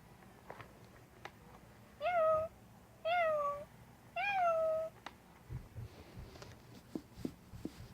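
Toy kitten switched on and playing three meows, each about half a second long and about a second apart, with light handling clicks around them.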